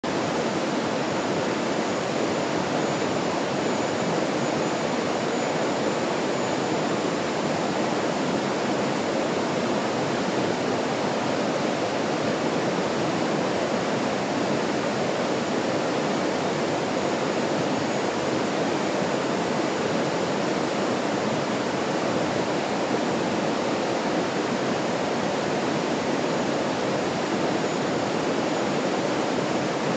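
Stream water flowing in a steady, even rush.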